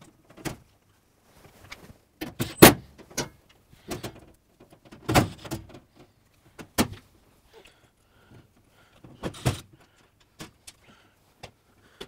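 A washing machine's back panel is knocked and rattled into place against the cabinet, then a cordless drill driver runs the panel screws in with short bursts. Several separate knocks and clatters, the loudest about two and a half seconds in.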